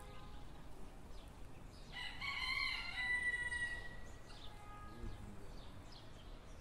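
A rooster crowing once, starting about two seconds in, the call ending in a long held note.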